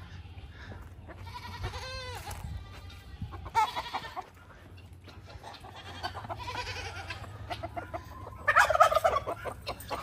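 Farm animals and poultry calling: a drawn-out, arching call about two seconds in, and a louder run of rapid calls near the end, over a steady low hum.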